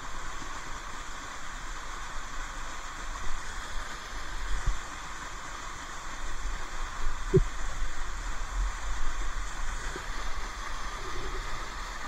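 Waterfall of falling water rushing steadily, an even hiss, with uneven low rumbling bumps on the microphone.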